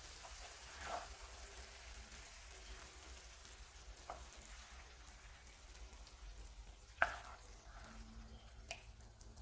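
Cubed kabocha squash frying in a stainless pan, with faint sizzling as a wooden spoon stirs it. A few spoon scrapes and knocks sound against the pan, the sharpest about seven seconds in.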